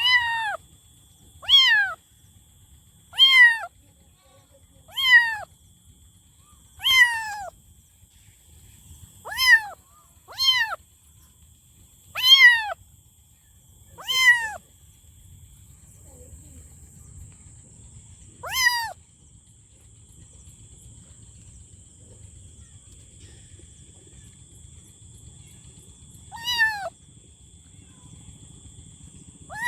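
A kitten meowing over and over: short, high calls that slide down in pitch, about one every two seconds, then only a few more calls, further apart, near the end.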